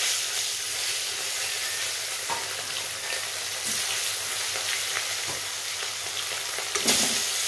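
Fish pieces sizzling steadily in hot oil in a wok, with a few light spatula taps and scrapes against the pan and a brief louder knock near the end.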